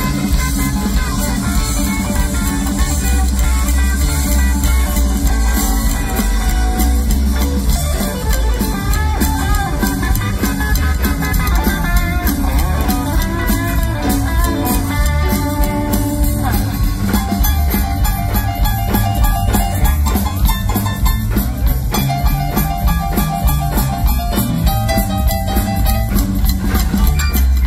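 Live rockabilly band playing an instrumental passage with no singing: electric guitar lead lines over upright bass, drums and keyboard.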